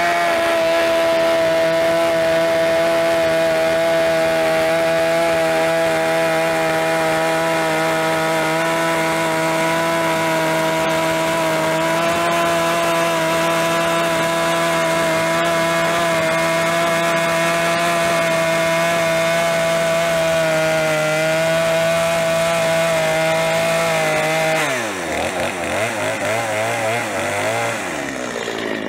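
Gas chainsaw held at full throttle as it cuts through a hewn cabin log, the engine note steady under load. Near the end the throttle is let off and the engine pitch falls away to a lower, unsteady idle.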